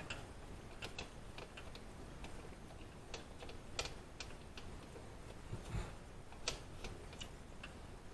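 Scattered sharp metallic clicks at irregular intervals from a wrench being worked on the wheel hub's mounting bolts, with one dull low thump a little past the middle.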